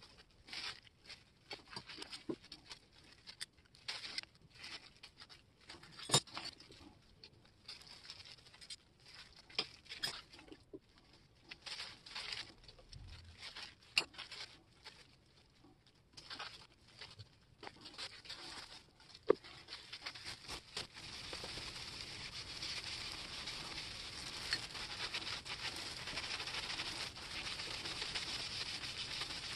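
Plastic gloves crinkling and small metal parts clicking as shear blades are handled. After about twenty seconds this gives way to a steady scratchy rubbing as a shear blade is scrubbed with steel wool.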